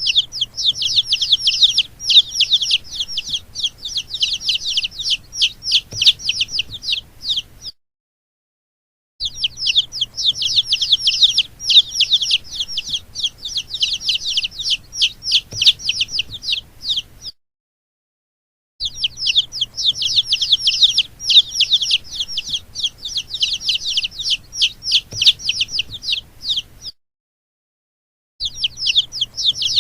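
Baby chicks peeping, with many rapid, high-pitched cheeps in stretches of about eight seconds broken three times by short silences.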